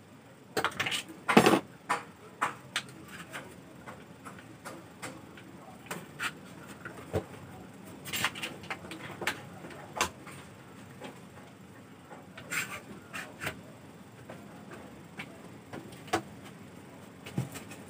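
Scattered knocks and clicks as a plywood panel is shifted on a workbench and fastened down with plastic spring clamps, loudest in a quick cluster in the first second and a half.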